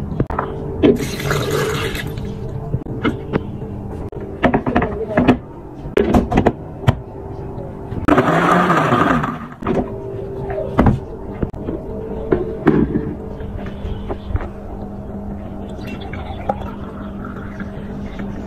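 Countertop electric blender run in two short bursts with a rushing whirr, among clicks and knocks of glass and jar being handled, over a steady low hum.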